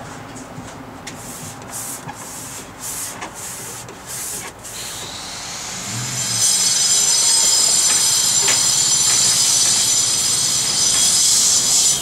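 Paintbrush strokes scrubbing paint onto canvas, a short swish every half second or so. About five seconds in, a loud, steady high hiss with squealing tones rises over them and then cuts off suddenly.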